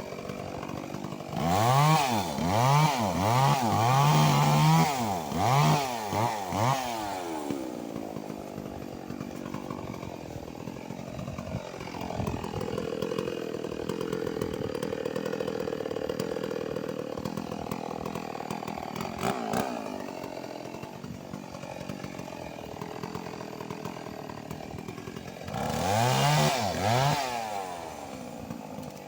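Stihl 381 two-stroke chainsaw revved up and down several times in quick succession, running more slowly in between, then revved again briefly near the end.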